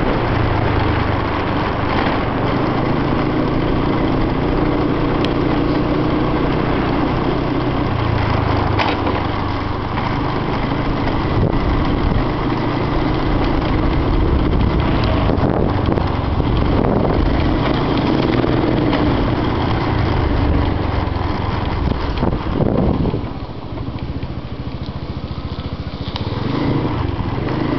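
Small motorcycle engine running steadily while riding along a road. It quietens for a few seconds near the end as the bike slows, then picks up again.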